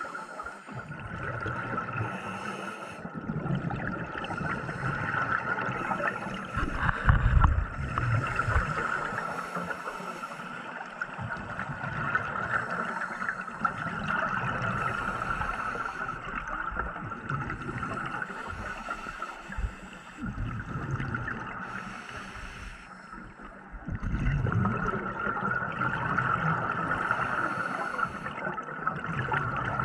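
Scuba diver's regulator breathing underwater: a hiss on each inhale alternating with bursts of bubbling, gurgling exhaust on each exhale, repeating every few seconds.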